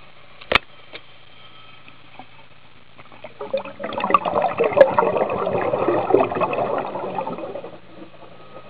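A diver's exhaled bubbles gurgling and crackling for about four seconds, muffled through an underwater camera housing, after a single sharp click about half a second in.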